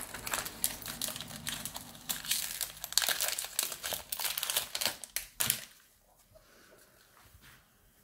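Foil wrapper of a Pokémon card booster pack crinkling and tearing as it is pulled open by hand, a dense rapid crackle that stops about five and a half seconds in.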